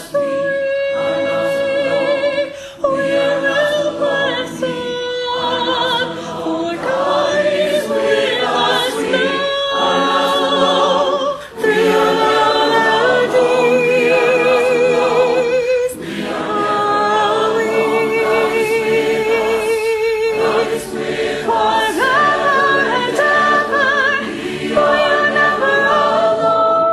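A virtual choir singing, with a woman's voice carrying the melody with vibrato above sustained choral harmonies, pausing briefly between phrases.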